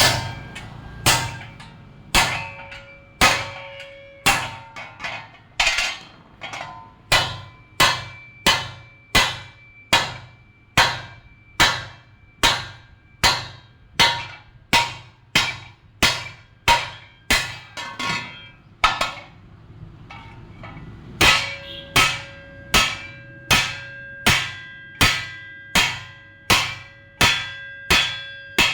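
A hammer striking metal at a steady pace, about one blow every three-quarters of a second, each blow leaving a ringing tone; the blows pause for about two seconds roughly two-thirds of the way through.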